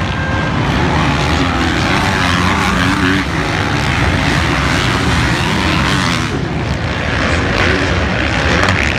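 Engines of several motocross bikes racing around the track, revving up and down, loud and continuous.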